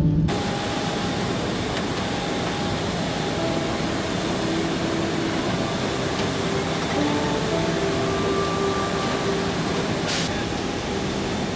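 A steady, loud rushing engine noise of the aircraft kind, with faint sustained notes underneath.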